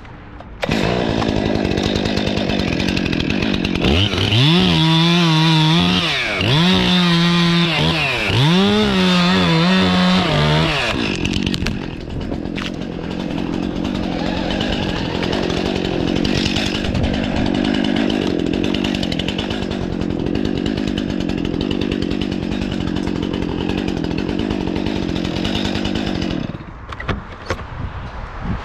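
Chainsaw running high in a poplar: it starts, revs up and down several times, then runs steadily through a long cut into the trunk before shutting off near the end, followed by a few light knocks.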